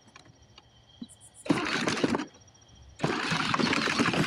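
Battery-powered ride-on toy backhoe's electric drive motor running in two bursts as the pedal is pressed: a short one about a second and a half in, then a longer one from about three seconds in.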